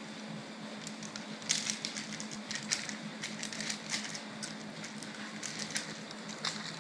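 Irregular crunching and crackling of gravel under the dogs' paws as they tug and shift their footing, over a steady low hum.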